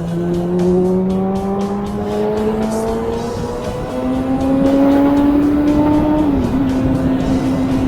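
Kawasaki ZX-6R inline-four motorcycle engine under way, its pitch climbing steadily as it accelerates. Near the middle the note steps up and then holds with a brief dip, with wind rushing over the microphone.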